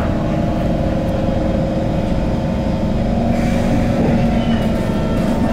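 SMRT C151 metro train pulling away from a station: traction motors whining over the low running rumble of the car. The motor tone rises slightly in pitch about three seconds in as the train picks up speed.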